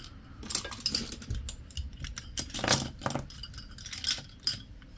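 Metal-handled nail art brushes clicking and clinking against each other and the tabletop as they are pushed and spread out by hand: a run of light, irregular clicks, the loudest a little past halfway.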